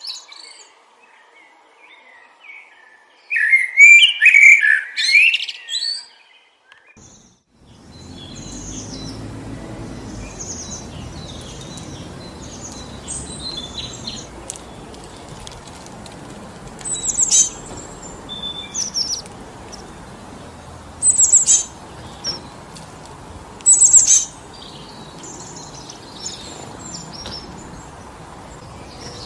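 Songbirds singing in a short loud burst over near quiet, then steady wind through forest trees comes in suddenly about a quarter of the way in. Short high chirps and calls sound over the wind, a few louder ones in the middle and near the end.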